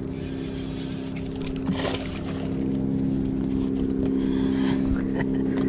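Boat motor running steadily with a low, even hum that grows a little louder about halfway through. A brief knock comes just under two seconds in.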